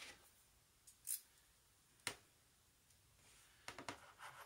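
Mostly near silence, with a few faint clicks and taps of small metal lock parts being handled: one about a second in, a sharper click about two seconds in, and a few light clicks near the end.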